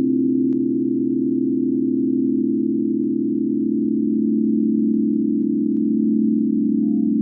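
Synthesized sonification drone: layered steady sine tones built on 111, 444 and 528 Hz, held without break, with a fast shimmering pulse in the tones.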